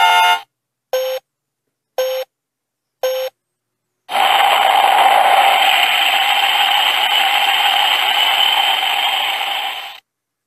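Electronic sound effects from the Space Quest SQ-01 toy rocket's speaker: the end of a short jingle, then three short beeps a second apart, like a countdown. About four seconds in comes a loud hissing blast-off noise that runs for about six seconds and fades out.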